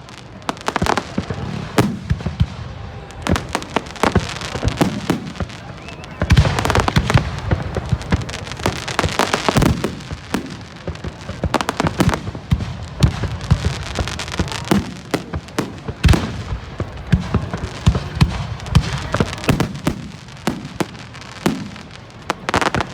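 Fireworks going off in a rapid string of bangs and crackles, densest and loudest from about six to ten seconds in.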